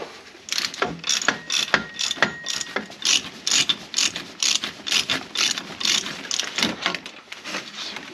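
Hand ratchet with a 15 mm socket clicking in quick, even strokes, about four clicks a second, as it backs out the AC compressor mounting bolts.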